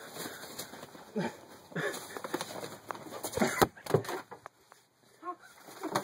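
Scuffle with a gull: wings flapping and knocking against things, with a cluster of sharp knocks and clatters about three and a half seconds in.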